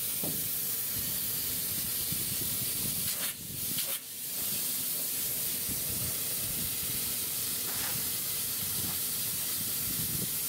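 High-pressure polyurea spray gun hissing steadily as it sprays the lining, with a short break about three and a half seconds in.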